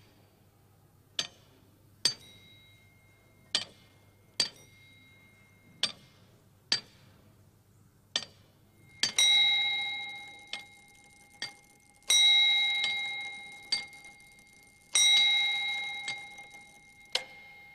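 Old clockwork mechanism clicking as its gears and levers move, sharp single clicks about once a second, some with a short ring. Then its bell is struck three times, about three seconds apart, each strike ringing out and slowly fading, with further clicks of the works in between.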